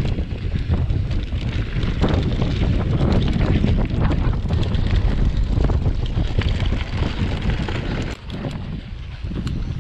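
Wind buffeting the microphone of a mountain bike's action camera during a fast descent, over the crunch and rattle of knobby tyres on dry dirt and loose gravel, with many small clicks from the bike. The noise eases about eight seconds in.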